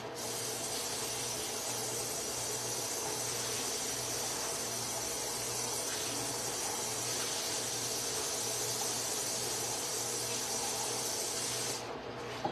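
A steady hiss that starts suddenly and cuts off shortly before the end, over a faint steady low hum.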